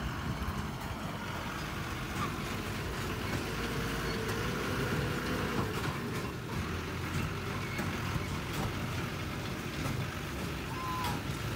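Military cargo truck driving past on a dirt track, its engine running steadily. A couple of brief bird calls come in over it.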